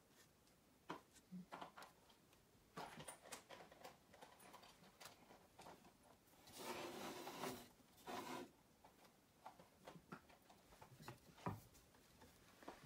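Faint handling sounds: light rustling and scattered small clicks of hands and a thin sculpting tool working wet-painted fabric on a polymer-clay figure, with a longer rustle about halfway through.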